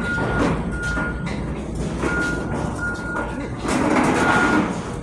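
A vehicle's backup alarm beeping: one high tone repeating roughly every three-quarters of a second over a steady low rumble. A louder rushing noise comes in about four seconds in.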